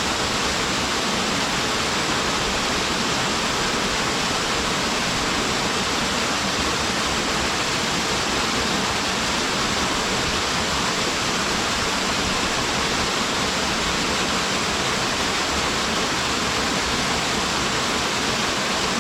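Waterfall pouring steadily: a constant, even rush of falling water with no breaks or changes.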